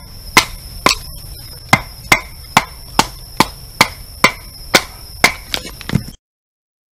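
Kindling wood being chopped by hand, one sharp chop roughly every half second, about a dozen in all, stopping abruptly about six seconds in. A steady high trill of night insects runs behind the chops.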